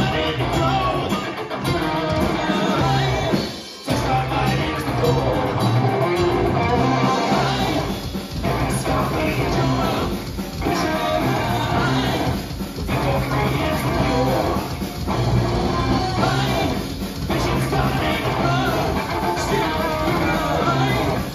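Live rock band playing: electric guitar, bass guitar and drums, with a singer's vocals over them. The band drops out briefly about three and a half seconds in and comes straight back in, and later leaves short gaps every couple of seconds.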